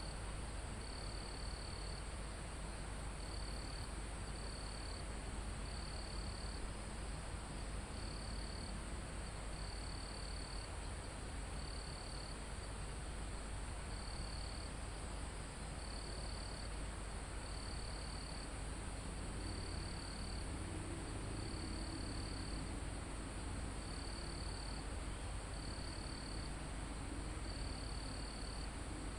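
Forest insect chorus: a steady high-pitched buzz from many insects, over which a cricket chirps in short notes of about half a second, repeated every second or two. Underneath is a soft, even hiss of breeze in the foliage.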